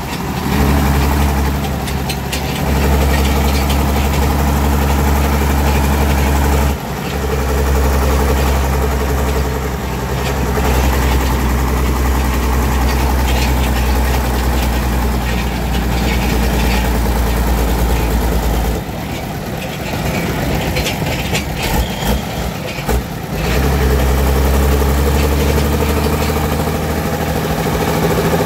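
The engine of a homemade wood-hauling truck runs steadily at a low, even pitch. About two-thirds of the way through, its low sound drops away for roughly four seconds with a few irregular knocks, then comes back to the same steady running.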